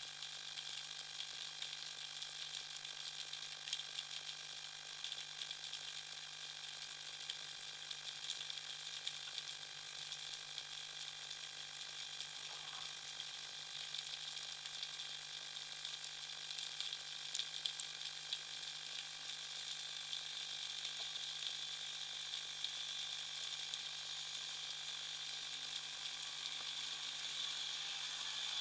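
Underwater ambience picked up by a diver's camera: a dense, steady crackle of fine clicks with a faint steady hum beneath, growing slightly louder near the end.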